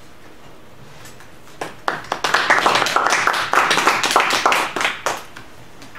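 Audience applauding: clapping starts about a second and a half in, holds for around three seconds, then dies away.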